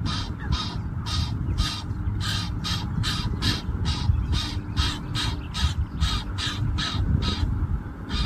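Egyptian goose giving a long run of short, harsh, rasping calls, about two to three a second, with a brief pause near the end, over a steady low background rumble.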